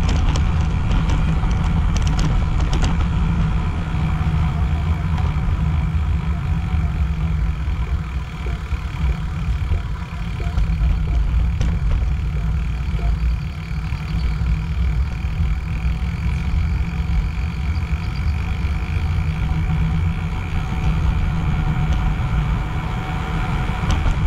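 Wind rushing over a GoPro's microphone on a moving bicycle: a steady, loud low rumble that goes on without a break.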